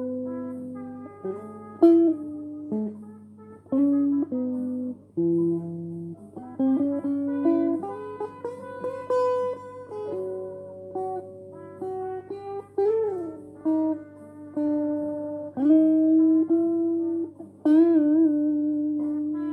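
Electric guitar played solo in a loose blues style: a melody of single sustained notes, with string bends and vibrato about two thirds of the way in and near the end. A steady low hum sits underneath.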